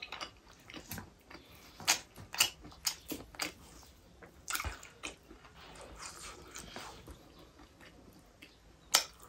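Close-up mouth sounds of a person eating chicken gravy with the fingers: chewing with a series of sharp, wet lip smacks, the loudest about two seconds in and again near the end.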